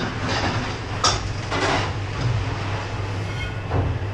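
Restaurant kitchen clatter: knocks and scrapes of metal curry dishes and plates on a serving trolley over a steady machine hum.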